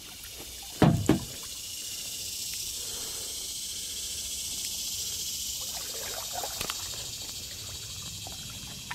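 A steady high-pitched insect chorus, with two loud low thumps about a second in and a few soft kayak-paddle splashes later on.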